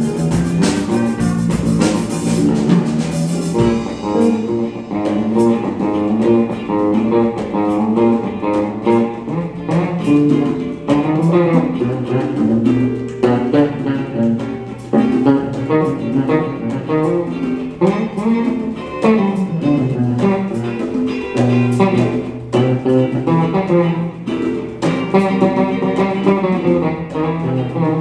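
A jazz-funk rhythm section plays with the horns silent: an electric bass line moves prominently under electric guitar and light percussion. A louder full-band passage with cymbals cuts off about three and a half seconds in.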